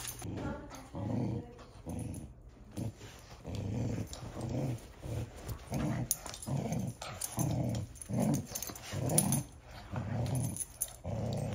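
A Doberman puppy and another dog play-growling while tugging a toy between them, in a steady run of short low growls, about one or two a second.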